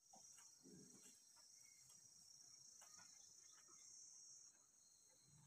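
Near silence with a faint, steady high-pitched chirring of insects that drops off about four and a half seconds in, and a few soft clicks.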